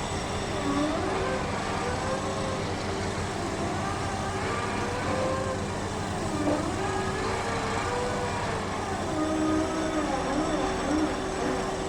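Heavy construction drilling rig running with a steady mechanical hum.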